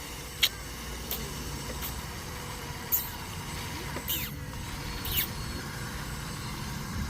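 Small electric motors of toy remote-controlled construction vehicles running with a low steady hum, with six short, sharp chirps or clicks, some falling in pitch, about once a second.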